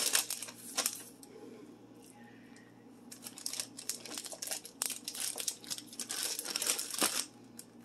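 Plastic Ziploc bag crinkling and rustling in irregular bursts as raw strip steaks are slid into it by hand, with a lull between about one and three seconds in.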